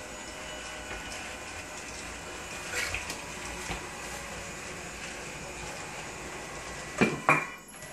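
Homemade robotic wet mop driving over a tile floor: a steady motor whir with a faint high whine, a few light clicks, and two sharp knocks close together near the end.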